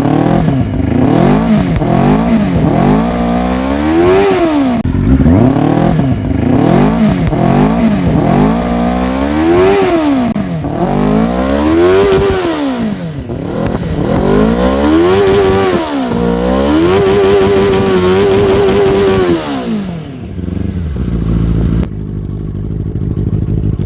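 Benelli TNT 600i's 600 cc inline-four engine, heard through its dual exhaust, being revved while standing. It gives a run of quick throttle blips, then longer revs that climb and fall, one held high for about two seconds. Near the end it drops back to a steady idle.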